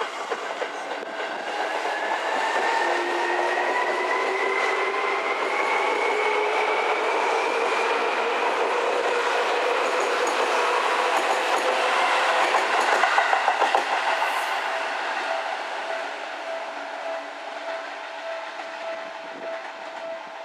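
Seibu 3000 series electric commuter train pulling away and passing close by. Its motor whine rises in pitch as it gathers speed, over wheel and rail-joint clatter that is loudest about two-thirds of the way through and then fades.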